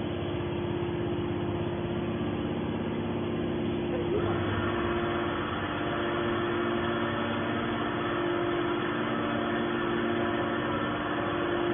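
Horizontal cast iron scrap baler running: a steady hum from its hydraulic power unit, motor and pump, which grows fuller about four seconds in.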